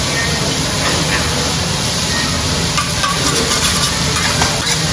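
Food sizzling steadily on a teppanyaki griddle as it is cooked.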